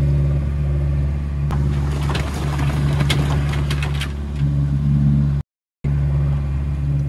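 Sailboat's inboard engine running steadily under power, a low even hum with some hiss of water and wind over it. It cuts to silence for about half a second near the end, then resumes.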